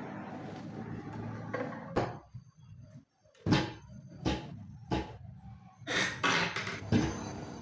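Wooden cabinet being handled: a rustle, then a string of sharp knocks and clunks, about seven over five seconds.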